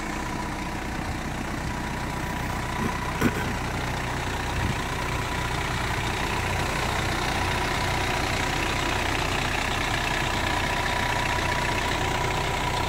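The Toyota Land Cruiser BJ74's 3.4-litre 13B-T turbo diesel idling steadily, with a faint steady whine over the engine note and one sharp click about three seconds in. It grows a little louder in the second half.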